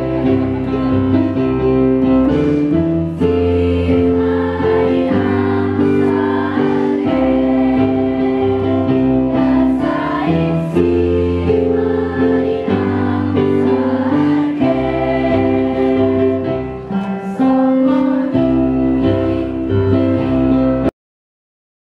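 A junior high school choir singing in harmony, accompanied by an electronic keyboard. The music stops abruptly near the end.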